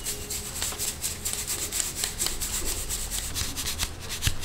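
Dried raw-mango powder (amchur) being sifted by hand through a round steel sieve: a quick, even, rasping shuffle of powder rubbing across the mesh, several strokes a second.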